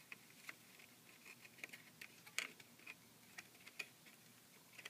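Faint, irregular clicks and light taps of plastic cable plugs being handled and pushed into their sockets on an LCD TV's main circuit board.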